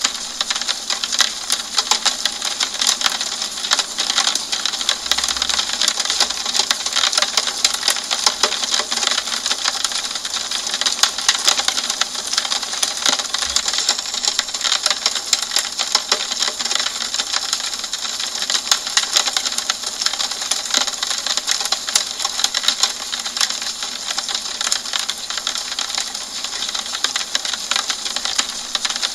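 Steady rain pattering on a window pane: a dense, even spatter of drops ticking on the glass, unbroken throughout.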